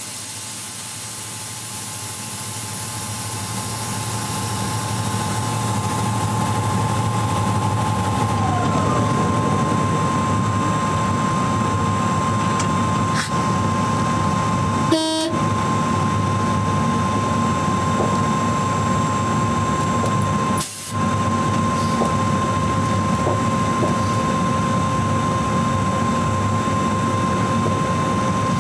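Cab noise of a BB 17000-class electric locomotive moving slowly: a steady hum and rumble with a high whine held throughout. The sound grows louder over the first several seconds as the locomotive gets under way, and a second whine falls in pitch about eight seconds in. A short crackle comes about halfway through.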